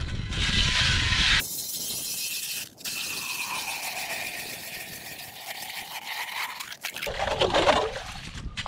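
Ice auger boring through lake ice: a steady grinding of the blades cutting, with a short break about three seconds in, and rougher crunching of ice chips near the end.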